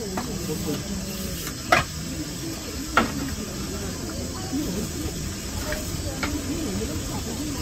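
Portable gas stove burner hissing steadily under a kettle, with two sharp clicks, the first a little under two seconds in and the second about a second later.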